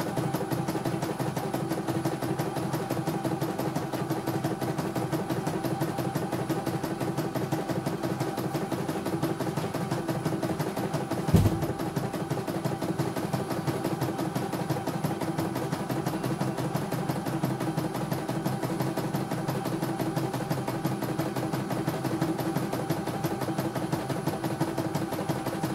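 CNY E900 computerized embroidery machine stitching a design, its needle running in a fast, even rhythm as the hoop carriage moves. A single sharp knock about eleven seconds in.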